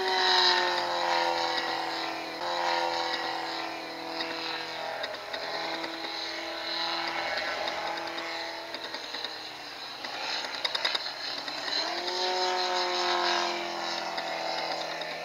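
Radio-controlled model aircraft engine droning in flight, its pitch sliding slowly down for the first several seconds, then rising steeply about twelve seconds in. There are a few brief crackles just before the rise.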